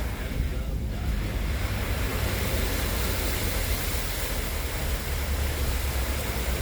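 A vehicle driving through a flooded street: a steady rush of water with a low rumble underneath.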